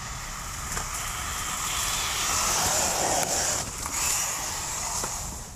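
Electric short course RC truck with a brushless motor driving over rough ground: an uneven hiss of tyres and drivetrain that rises and falls, with a low rumble and scattered short knocks from bumps.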